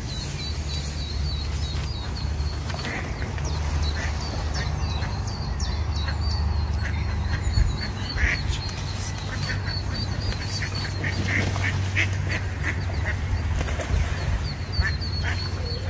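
Ducks quacking on a lake in a run of short calls through the middle stretch. A small bird repeats a high chirping note throughout.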